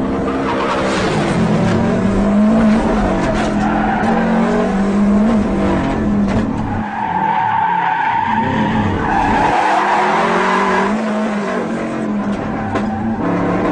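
Subaru Impreza rally car's flat-four engine revving up and down as the car drifts, with tyres skidding and squealing on the dusty tarmac. A high tyre squeal stands out in the middle, while the engine note drops away.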